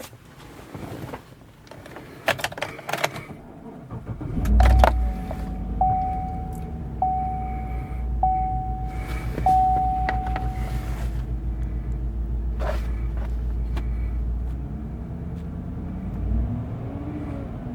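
A few clicks, then a Chevrolet Silverado pickup's engine starts about four seconds in and settles into a steady idle, its loose cylinder 6 spark plug wire just reconnected. A dashboard warning chime dings five times as it starts, and the engine note swells briefly near the end.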